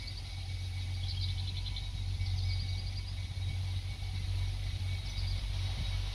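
Distant excursion train at the depot, a low steady engine rumble, with a few short high chirping trills about a second in, around two seconds in and near the end.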